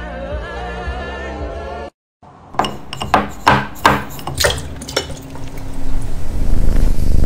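A sung song cuts off after about two seconds. After a short gap come about half a dozen sharp clinks and knocks as a cat's head bumps around inside a plastic kitchen canister. Near the end a loud, dense scraping noise builds up.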